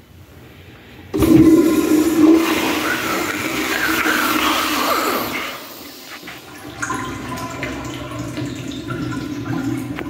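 Commercial toilet's manual flushometer valve flushing: a sudden rush of water about a second in, loud for about four seconds, then dropping off and running on more quietly with a steady tone.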